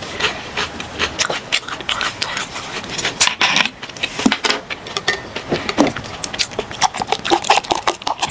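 Close-miked crunching of snack chips being chewed: a dense run of sharp crackles and clicks. Near the end, beer is poured from a plastic bottle into a glass mug, with a short run of glugging.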